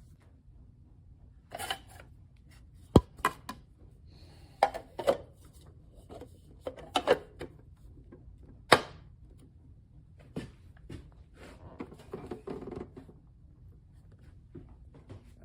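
Irregular knocks, clicks and clattering, as of objects being handled and set down on a hard surface, with two sharper knocks about three seconds in and just under nine seconds in.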